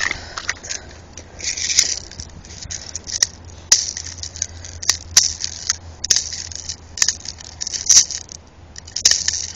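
Close-up handling of an airsoft pistol and its detached magazine: a string of sharp plastic-and-metal clicks and scrapes, with short bursts of hiss between them.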